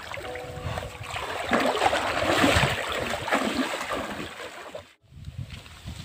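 Water splashing and sloshing as someone wades quickly through a shallow river, loudest in the middle, then cut off abruptly about five seconds in.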